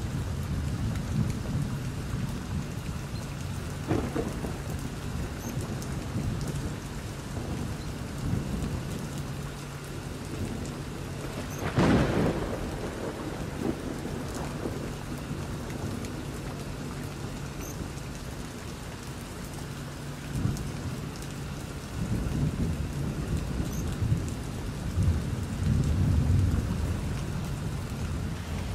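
Thunderstorm: steady rain with rolling thunder. A sharp thunderclap about twelve seconds in is the loudest moment, a smaller crack comes about four seconds in, and deeper rumbling builds near the end.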